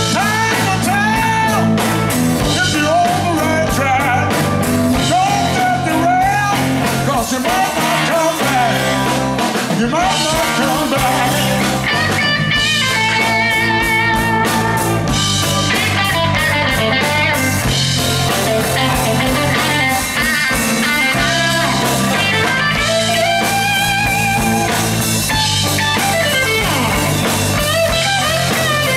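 Live electric blues band playing, with a lead electric guitar soloing in bent, wavering notes over a steady bass line and drums.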